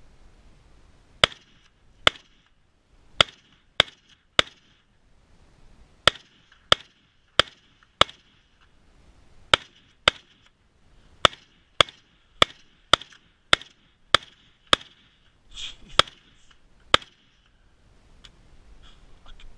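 PTR-91 rifle (a roller-delayed 7.62×51 mm battle rifle) fired semi-automatically: about twenty sharp shots in quick strings, roughly half a second apart, with short pauses between the strings.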